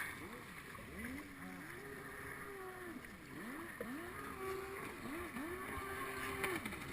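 Racing jet ski engines, faint, revving up and down again and again, their pitch rising and falling over one another as the craft run over the water.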